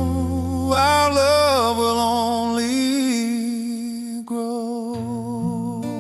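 Closing bars of a slow love ballad: long held sung notes with vibrato over soft backing. The bass fades out about halfway and comes back near the end.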